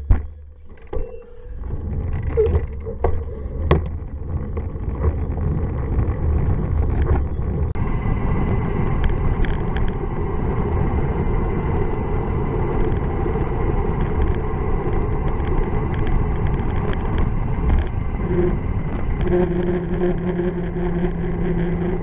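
Wind buffeting a bike-mounted camera's microphone, with tyre noise, as a bicycle rides along a road. A few sharp clicks come in the first seconds, and a steady low hum joins near the end.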